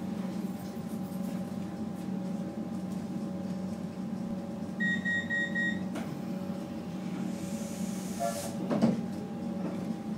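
Cabin of a Comeng electric suburban train standing at a platform: the steady hum of the train's onboard equipment. About halfway through comes a short run of high beeps, then a click, a hiss of air and a sharp thump a few seconds later.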